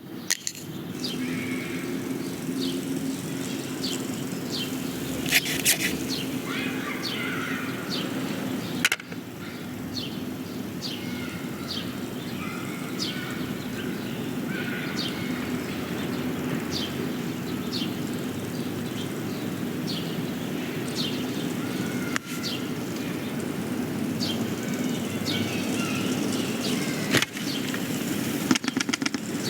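Film sound-effects ambience: a steady low hum with many short, high, falling chirps scattered throughout, and a few sharp clicks or knocks, the clearest about 5 seconds in, about 9 seconds in and near the end.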